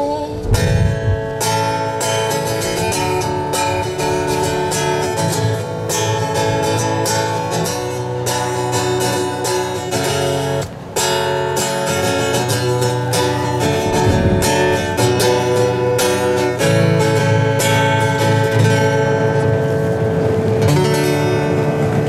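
Acoustic guitar strumming chords in a steady rhythm: the instrumental closing bars of a song after its last sung line.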